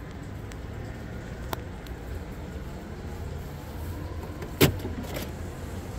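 Steady low outdoor rumble with a few faint ticks. One sharp knock, the loudest sound, comes about two-thirds of the way through, followed by a brief rustle.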